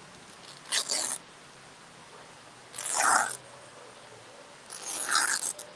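Three short bursts of crinkling and rustling from stiff, wet leaf strips as they are handled and pressed around the legs, about two seconds apart.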